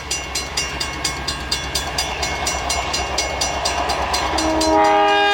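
Train wheels clattering over rail joints in a fast, even rhythm, then a train horn sounding a steady multi-note chord near the end, louder than the clatter.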